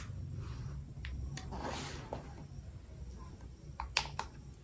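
Handling of a tablet and its cardboard packaging: a soft sliding rustle near two seconds in, then two sharp clicks close together about four seconds in as the grey-covered tablet is lifted from its box, over a steady low hum.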